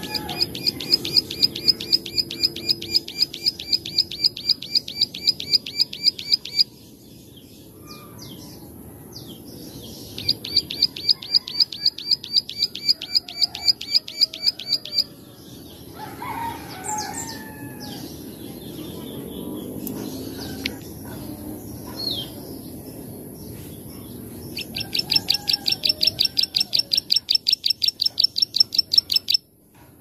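Plain prinia (ciblek sawah) singing: long runs of rapid, evenly repeated bright notes, about six a second, in three bouts, with softer, lower calls between them.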